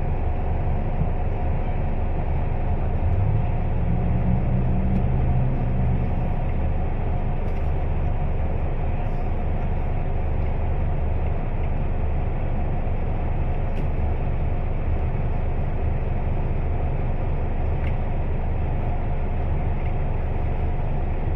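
Scania K320UB city bus heard from inside the cabin while under way, its diesel engine running with a steady low drone and drivetrain noise. A few seconds in the engine note rises as the bus accelerates.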